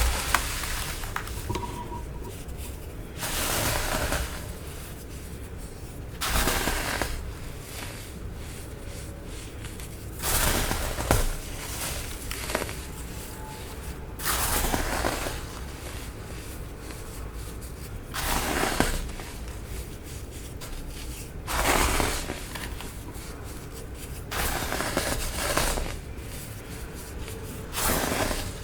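Clumps of baking soda being crushed in short crunchy bursts, each about a second long, coming roughly every three to four seconds.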